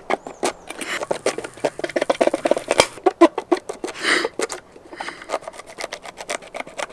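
A zucchini being sliced into rounds with a small knife. The crisp cuts and clicks come quickly as the blade goes through the flesh and taps the hard surface beneath.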